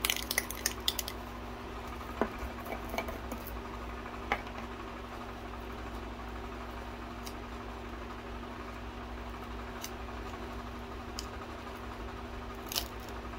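Small plastic acrylic-powder jars being handled and a screw lid opened: a quick cluster of clicks and taps in the first second, then sparse single ticks every few seconds. A steady low hum runs underneath.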